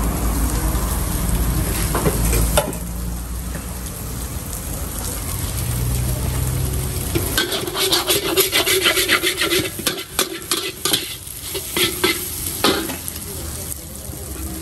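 Fried noodles and cabbage cooking in a wok: a metal ladle scraping and knocking against the wok in quick strokes over the sizzle, from about halfway through until near the end. A low rumble fills the first couple of seconds.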